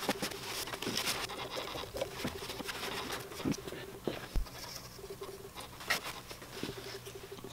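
Light rubbing and scratching of a rag being wiped around a freshly honed engine cylinder bore, with scattered small clicks and taps of parts being handled.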